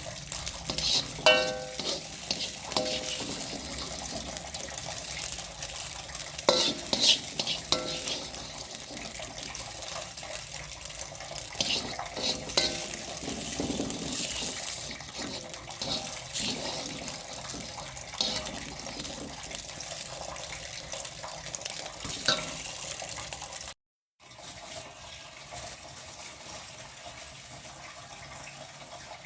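Kitchen work: metal utensils and dishes clink and clatter against pans over a steady hiss. After a brief drop-out about 24 seconds in, a steady rush like a running tap follows.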